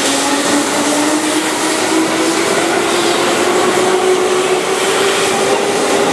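A Keihan 2400 series electric train pulling out of the station and accelerating. A steady whine from its motors and gears slowly rises in pitch over the rolling noise of the cars.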